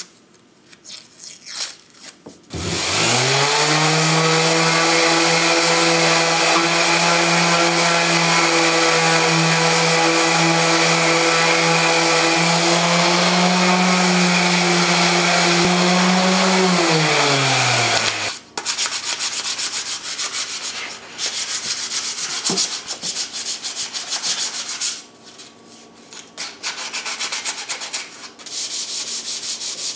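Electric random orbital sander starting up about two and a half seconds in and running steadily on a red oak board, then switched off and winding down a little past the middle. After that, a sheet of sandpaper is rubbed back and forth by hand over the wood in quick rasping strokes, with a short pause.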